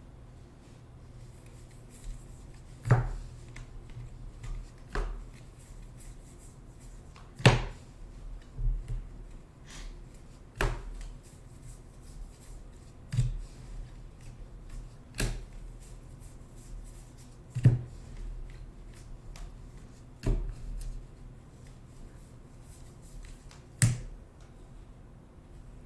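Trading cards and packs being handled on a table: a sharp tap or click about every two to three seconds, over a low steady hum.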